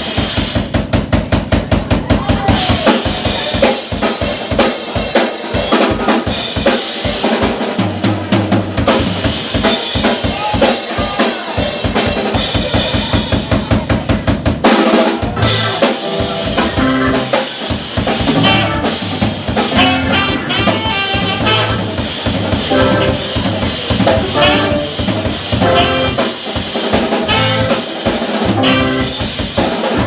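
Live instrumental band of organ, electric guitar, saxophone and drum kit, with the drums to the fore. A fast, even run of drum strikes comes in the first few seconds, then the full band plays over steady kit beats and rimshots.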